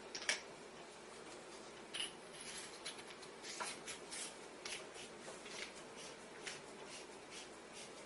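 Faint handling of a Streamlight TL-2 aluminium flashlight as its tail cap is twisted: a sharp click just after the start, then scattered light clicks and rubbing.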